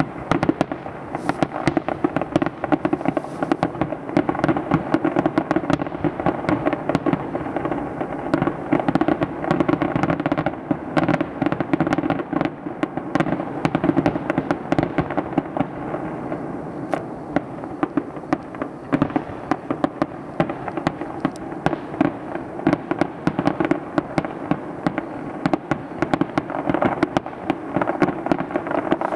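Aerial firework shells bursting in quick succession: a dense, continuous barrage of bangs and crackling, several reports a second.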